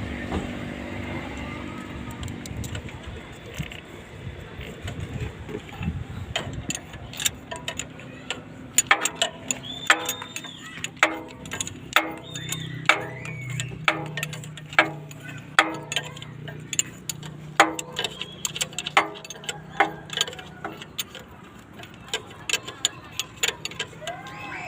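A steady low hum for the first few seconds, then a run of sharp metallic clicks and clinks, each with a brief ring, coming irregularly about one or two a second.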